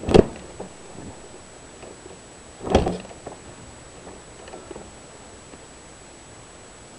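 Two heavy thumps about two and a half seconds apart, the second a little longer than the first.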